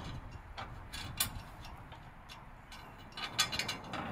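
Scattered sharp metallic clicks and taps from hand tools and bolts being worked on a motorcycle's bolt-on skid plate, with a quick run of clicks a little past three seconds in.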